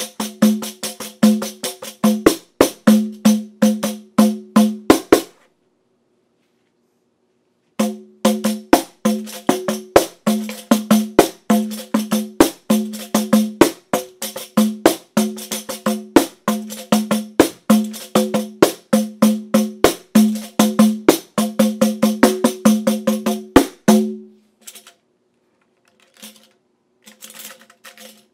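Pandeiro with its head taped underneath in an asterisk pattern, hand-played in a fast regular rhythm of drum-head tones and jingle rattles; the tape damps the head's overtones, giving a crisper, cleaner sound. The playing stops for a couple of seconds about five seconds in, resumes, and near the end thins out to a few soft taps.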